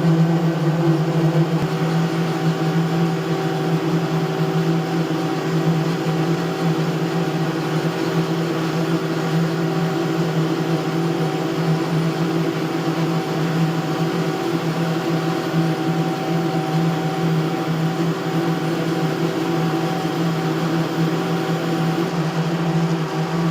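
A steady, unchanging mechanical drone: a low engine-like hum with a few higher held tones and a hiss over it.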